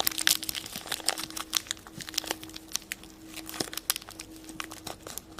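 Small plastic packet around a Shopkins toy being crinkled and opened by hand: a run of irregular crackles that thins out toward the end.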